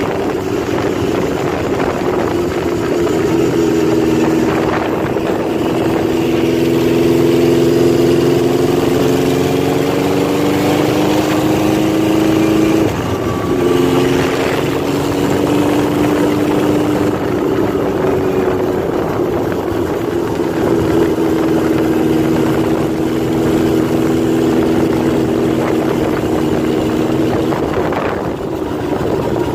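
Honda CB750 Four chopper's air-cooled inline-four engine running on the road. It pulls up slowly in pitch for several seconds, drops suddenly about thirteen seconds in as it shifts up, then cruises at a fairly steady pitch.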